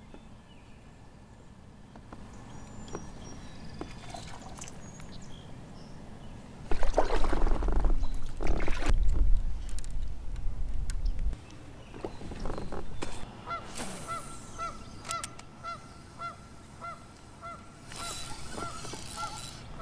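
A goose honks over and over, about twice a second, through the second half. Before that, a few seconds of loud low rumbling and knocking come from handling close to the microphone while a lure snagged on a dead log is pulled free by hand.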